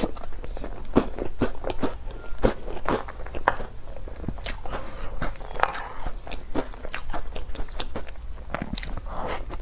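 Close-up eating sounds: someone biting into and chewing crunchy food, a run of irregular crisp crunches several times a second.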